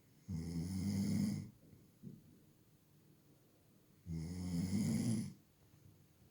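Snoring in sleep: two long, rasping snores about four seconds apart, each lasting just over a second, with a faint short breath between them.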